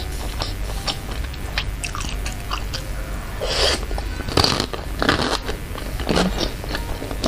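Close-miked mouth sounds of chewing bakso and pentol meatballs in chili broth: many small wet clicks, with a few breathy puffs between about three and a half and six seconds in.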